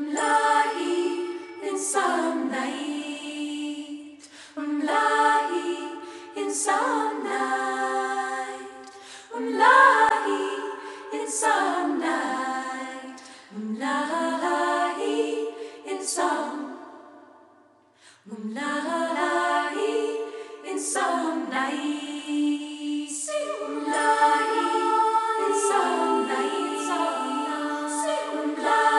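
A cappella choir singing in layered harmony, in phrases that swell and fade, with a brief break about eighteen seconds in.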